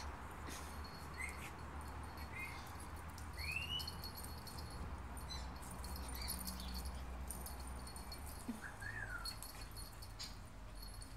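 A cocker spaniel and a pug puppy play-fighting: short high whines four times, with light clicks throughout.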